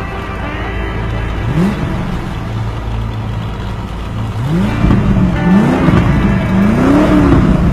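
Car engines revving in a series of throttle blips, each rising and then falling in pitch, over a steady low idle. The blips come faster and louder in the second half.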